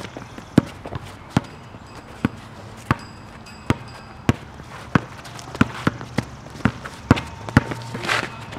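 Basketball dribbled on an asphalt court: sharp bounces a little more than one a second, coming faster, about two a second, in the second half as the player drives to the basket. A short burst of noise near the end.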